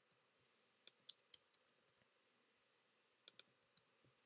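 A few faint, separate clicks from a computer keyboard and mouse: four quick ones about a second in and a close pair about three seconds in, with near silence between.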